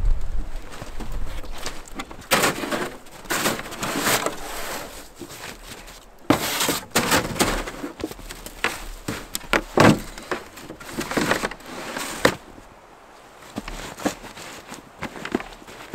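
Irregular rustling, crunching and knocks as a backpack and camping gear are handled and moved about in snow, with footsteps crunching in the snow.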